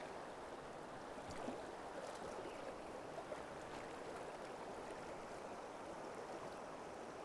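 Shallow river current running over a rocky riffle: a faint, steady rush of water.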